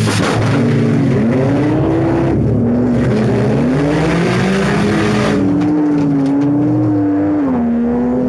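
1997 Subaru Impreza's flat-four boxer engine, heard from inside the stripped cabin, revving up and down as the car drives around the dirt derby track. A brief knock comes right at the start, and a harsher rushing noise rises over the engine from about two and a half to five seconds in.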